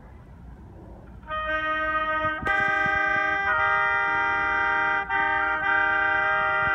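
Three oboes playing together in harmony, in long held notes that change pitch now and then. One oboe starts about a second in and the others join a second later.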